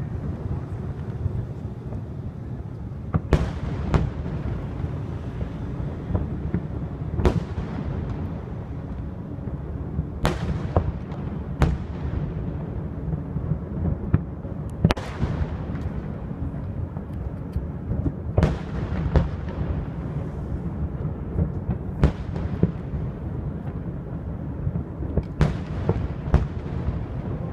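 Aerial firework shells bursting in the distance: about ten sharp bangs a few seconds apart, each trailing off in an echo, over a constant low rumble.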